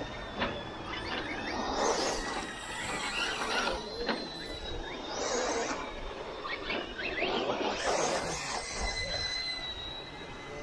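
Electric RC off-road cars running on a dirt track: brushless motor whine with tyre and dirt noise, swelling and fading four times as the cars pass, over a thin, steady high whine.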